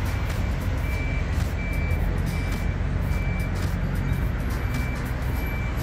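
A construction vehicle's reversing alarm beeping steadily, one high-pitched beep about every three-quarters of a second, over a low rumble of engines and traffic.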